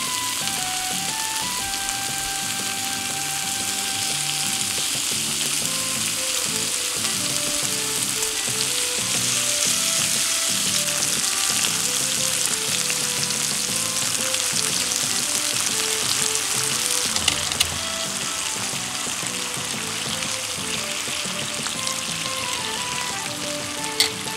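Thin slices of marbled beef sizzling on a hot iron griddle plate, cooking in the plate's residual heat: a steady frying hiss that grows louder through the middle. A couple of short clicks near the end.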